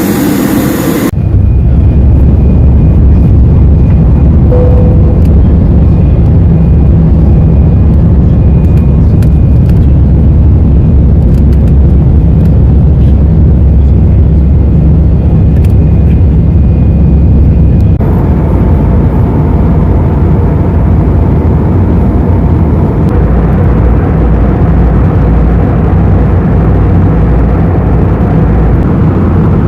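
Loud, steady low rumble of a vehicle ride, cutting abruptly to a new stretch about a second in and again after about 18 seconds.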